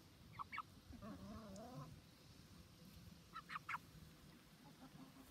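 A hen giving short, faint clucks: a pair about half a second in and a quick run of three around three and a half seconds in, with a soft wavering note between them.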